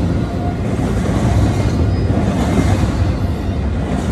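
Freight train of empty intermodal well cars rolling past: a steady, heavy rumble of wheels on the rails.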